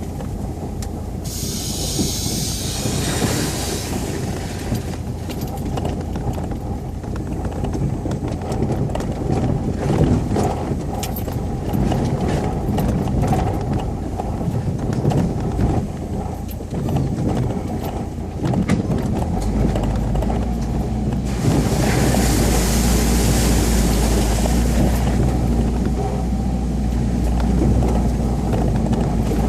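UAZ Patriot off-road vehicle driving over rough ground, its engine running with a steady low rumble, and frequent knocks and rattles. The engine note deepens and gets louder about two-thirds of the way through. Two separate bursts of hissing noise cut in, one near the start and one about three-quarters of the way through.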